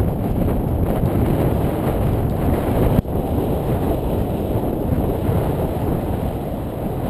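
Wind buffeting the microphone: a steady, loud rumble that briefly cuts out with a click about three seconds in.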